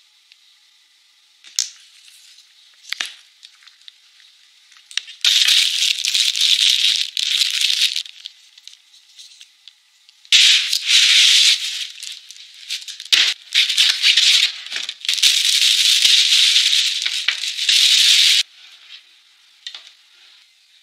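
Plastic packaging wrap crinkling and rustling as it is handled, in three long stretches, with a couple of sharp clicks before them.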